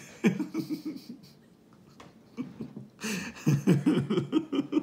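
A man laughing at his own joke: a short burst of laughter just after the start, then a longer run of rapid laughing from about three seconds in.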